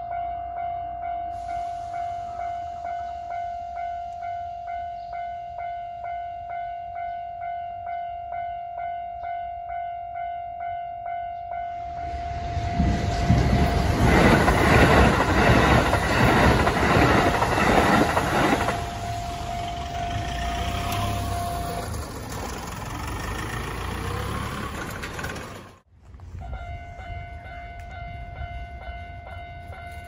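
Japanese level-crossing warning bell ringing steadily at about two dings a second. About twelve seconds in, a Kintetsu limited express train rushes through the crossing for several seconds, its wheels clicking over the rail joints. The bell stops a few seconds after the train has gone, then is heard ringing again near the end.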